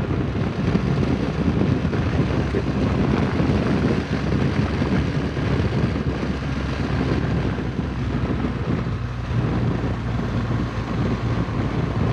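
Wind rushing over the microphone of a BMW R1200GS motorcycle under way, with the bike's flat-twin boxer engine running steadily underneath.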